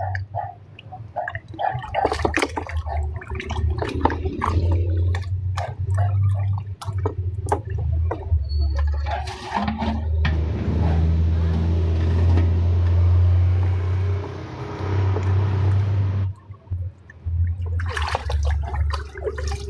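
Water running from a tap for about six seconds and stopping abruptly, after a stretch of clattering and knocks. A steady low hum runs underneath.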